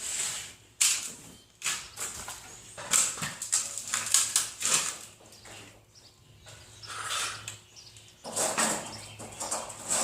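Sheet metal being cut for a hood, in a run of irregular rasping strokes of different lengths, some short and sharp and a longer stretch near the end, over a faint steady hum.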